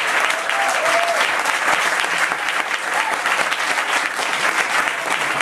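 Audience applauding steadily, with a couple of short voice calls from the crowd.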